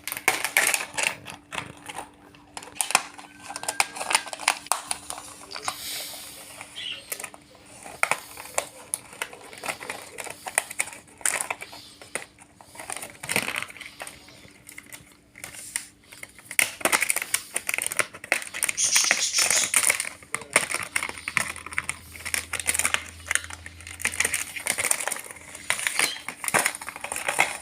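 Rapid, irregular small clicks and taps, many sharp knocks in quick succession.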